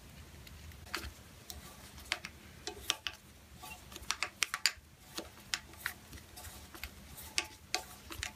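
Screwdriver turning a number 8-32 screw into a freshly tapped hole in a steel bar: a run of light, irregular metallic clicks and ticks as the bit and threads catch.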